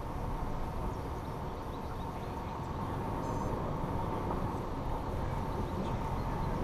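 2014 Toyota 4Runner SR5's 4.0-litre V6 running at low speed as the SUV crawls along a dirt off-road trail: a steady low rumble with a faint constant whine above it.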